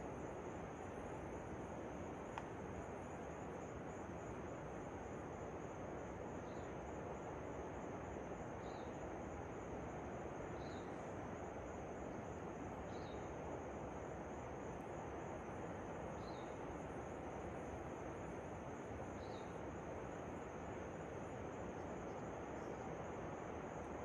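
Steady rush of a distant waterfall, with a steady high buzz above it. A small bird gives a short high call about six times, every two to three seconds.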